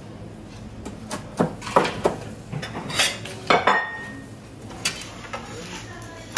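Kitchen utensils and dishes clinking and knocking: a string of sharp metallic clinks between about one and five seconds in, one of them ringing briefly.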